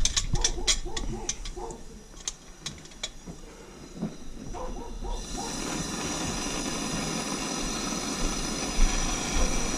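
A few sharp clicks, then about five seconds in a plumber's torch flame starts hissing steadily as it heats a soldered copper joint to sweat it apart.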